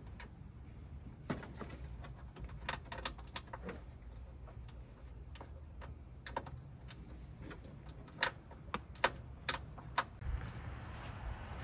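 Irregular light clicks and taps of hands working small parts and tools under an open truck hood while a hood gas strut is fitted, coming in small clusters of a few clicks at a time.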